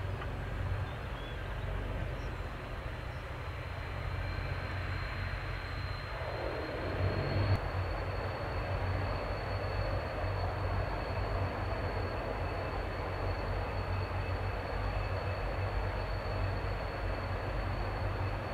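Two Rolls-Royce Tyne turboprop engines of a Breguet Atlantique running as it taxis and lines up, a steady high turbine whine over a low propeller drone. About seven seconds in, the drone grows louder and the whine steps up slightly in pitch.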